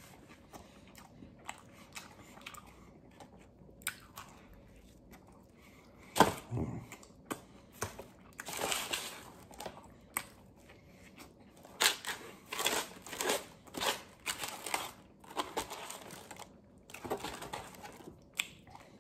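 A man eating a sub sandwich close to the microphone: intermittent chewing and biting with short bursts of paper crinkling, and a brief louder sound about six seconds in.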